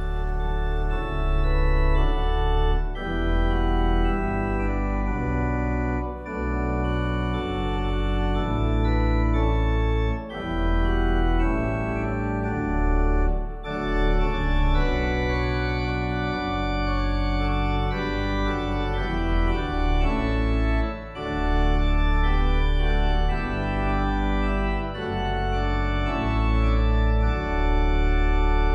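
Organ playing slow, held chords over deep bass notes, fading in at the start.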